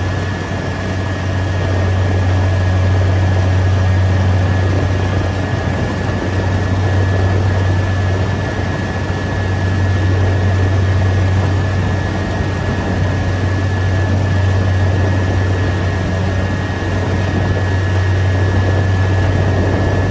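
Rice combine harvester running steadily at work, with a loud, even low engine hum and a thin, constant high whine.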